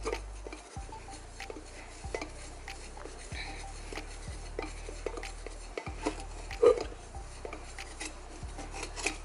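A cloth rubbing quickly back and forth over a bare aluminum intake pipe, buffing off Nevr-Dull polish to bring up the shine. Scattered light scuffs and taps run through it, with one louder knock about two-thirds of the way through.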